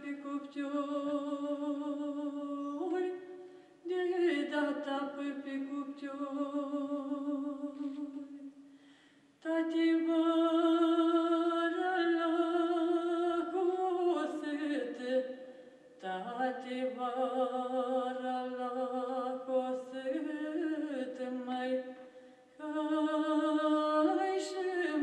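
Vocal music: a singing voice holding long notes in phrases, with short breaks between phrases about every five to six seconds.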